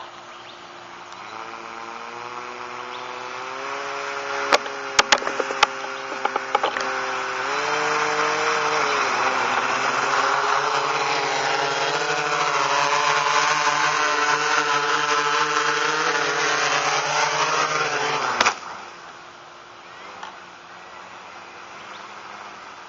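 FPVFactory Mariner waterproof quadcopter's electric motors and propellers whining, the pitch stepping up and down as the throttle changes, with a few sharp clicks a few seconds in. The motors run loud for about ten seconds and then cut off suddenly, with one click, about 18 seconds in.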